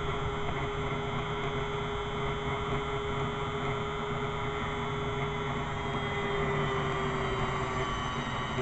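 Electric grinder motor running steadily with an even hum, between passes on the knife blade.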